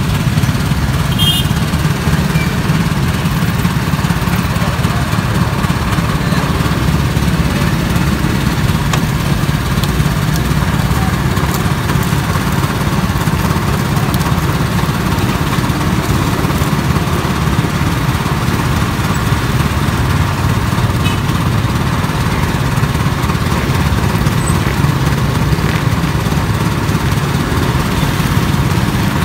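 Motorised stainless-steel sugar cane juicer running steadily, a constant low hum as cane stalks are fed through its rollers.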